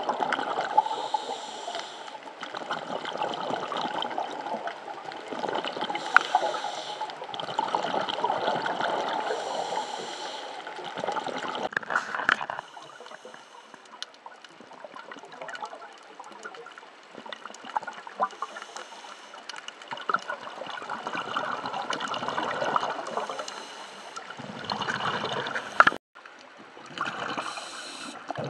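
Water swishing and gurgling around a camera held underwater, coming in irregular surges with short hissy flares. The sound cuts out for an instant near the end.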